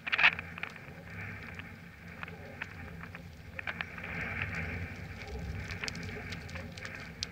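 Palomino horse loping across a soft dirt arena: irregular hoofbeats and crackling clicks, growing louder as the horse passes close to the microphone.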